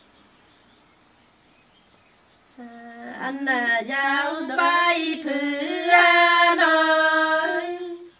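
A single voice singing a line of Nùng call-and-response folk song, in long held notes whose pitch sways and bends. It starts about two and a half seconds in and cuts off abruptly near the end.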